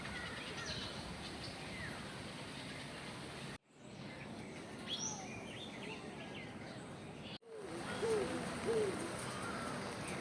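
Birds calling over a steady background hiss: scattered short high chirps, then near the end a few low hooting calls. The sound cuts out abruptly twice.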